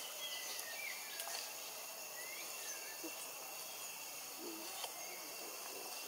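Jungle ambience: a steady high drone of insects with short bird chirps now and then.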